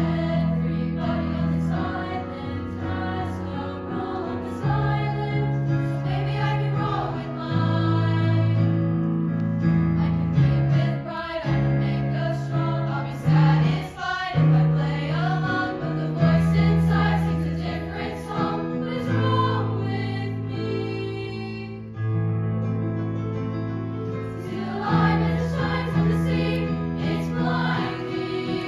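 Women's choir singing a slow piece in parts, holding chords that change every second or two.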